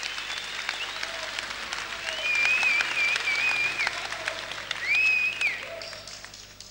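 Concert audience applauding between songs, with a long whistle held about a second and a half and a shorter one soon after; the applause fades away near the end.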